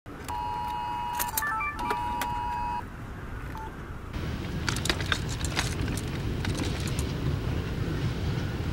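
Wireless Emergency Alert attention tone from a phone: the two-pitch tornado-warning alert signal, sounding twice for about a second each with short higher beeps between. After a brief lull, steady outdoor rumble with scattered clicks comes in.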